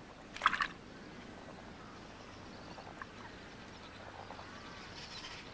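A brief splash of water about half a second in, over faint wetland ambience with a few soft chirps.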